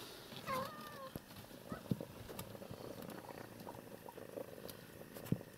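A cat's short, gliding meow about half a second in, then a mother cat purring steadily as her kittens nurse. Twice there is a sharp knock against the cardboard box, near two seconds and again near the end.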